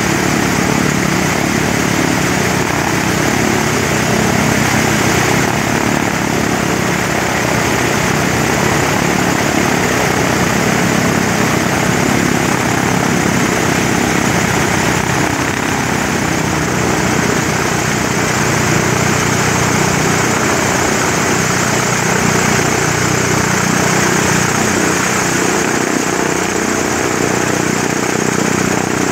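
Lockheed P-2V Neptune air tanker's Wright R-3350 radial piston engines running steadily on the ground, propellers turning.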